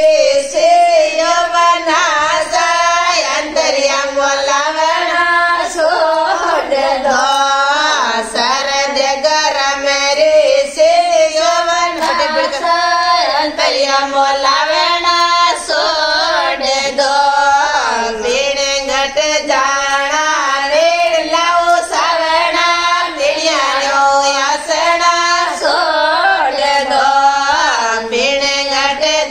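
A group of women singing a Rajasthani Marwari wedding folk song (vivah geet) together, their voices carrying a continuous, winding melody with no pauses.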